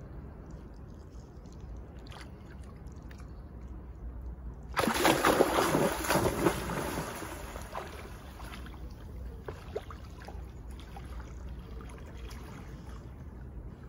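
A dog plunging into a river: one big splash about five seconds in that dies away over a couple of seconds, then fainter splashing as it swims off, over a low steady rumble.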